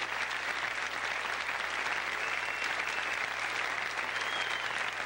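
Theatre audience applauding steadily after a song.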